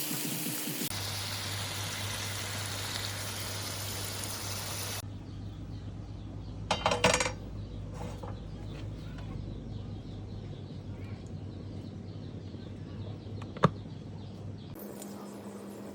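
Kitchen utensils clattering briefly about seven seconds in, with a single sharp tap near the end, over a low steady hum.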